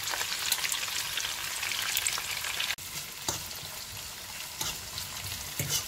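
Sliced onion, bell peppers and tomato sizzling as they fry in hot oil in a frying pan, a steady hiss that drops suddenly to a quieter level about three seconds in. In the second half a fork stirs them, with a few clicks against the pan.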